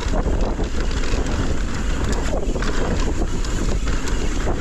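Wind rushing over the camera microphone and a mountain bike's tyres rolling over loose, dry dirt on a fast descent, with scattered clatter from the bike.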